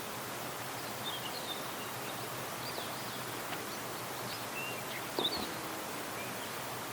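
Small birds giving short, scattered high chirps over a steady outdoor background hiss, with a brief louder chirp and click about five seconds in.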